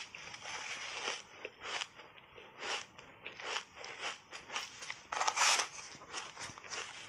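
Refrozen block ice coated in matcha powder being bitten and chewed close to a clip-on microphone: a run of sharp, irregular crunches, the loudest and longest about five seconds in.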